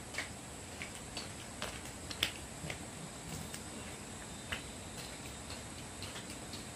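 Scattered light clicks and taps at irregular intervals over a steady background hiss, with one sharper click about two seconds in.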